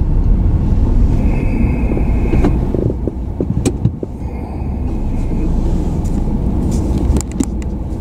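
Car driving slowly, its engine and tyre rumble heard from inside the cabin. A high electronic beep about a second long sounds twice, and a few sharp clicks and knocks come in the middle and near the end.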